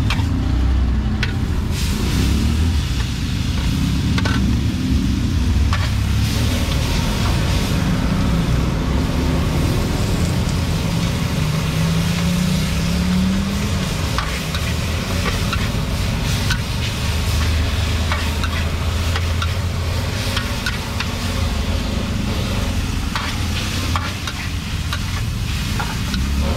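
Busy street-market ambience: a vehicle engine running close by, its pitch rising and falling about halfway through, over a steady hiss with scattered clicks.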